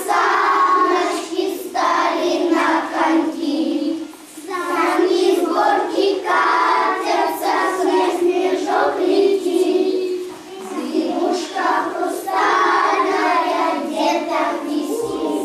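A group of young children singing together in unison, in sung phrases with short breaks about four and ten seconds in.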